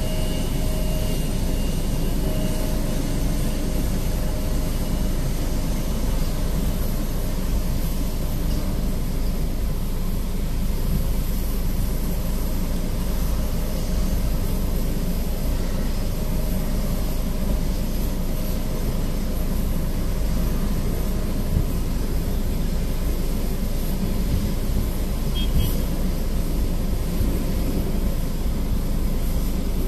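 Steady low drone of jet aircraft and apron machinery, muffled through a vehicle's cabin.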